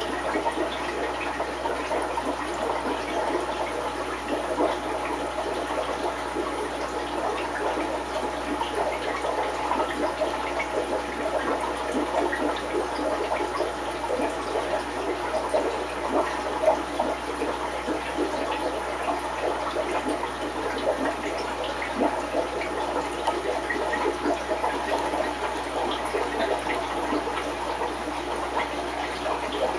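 Aquarium sponge filter running, with a steady bubbling and gurgling of water made of many small pops.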